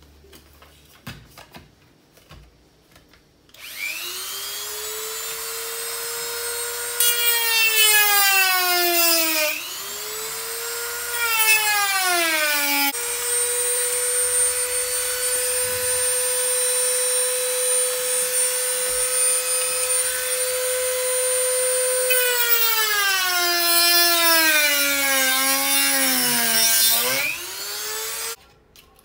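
Handheld Lotus rotary tool with a cut-off disc starting up with a rising whine, its pitch sagging with a gritty cutting noise each time the disc bites into the mixer's plastic drive part, three times, then shutting off near the end. The cuts are freeing a coupling seized on the motor shaft.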